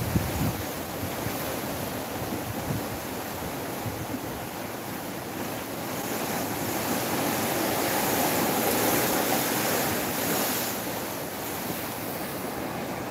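Sea water rushing and churning along the hull of a large moving ship, with wind buffeting the microphone. The rush swells louder in the middle, and the wind gusts are strongest near the start.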